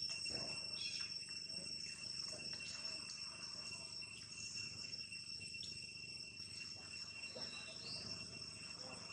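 Insects trilling steadily at one high pitch, with faint scattered rustles.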